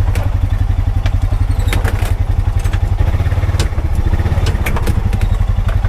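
Engine of a Honda Pioneer 520 side-by-side running steadily under way, with scattered clicks and knocks as the machine rattles over rough ground.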